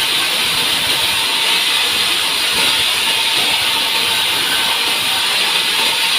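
Sawmill saw running steadily through a pine log, a loud, even hiss with no breaks.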